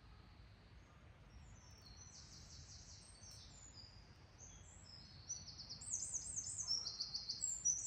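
Small songbird singing: high, rapid trilled phrases that get louder about five seconds in.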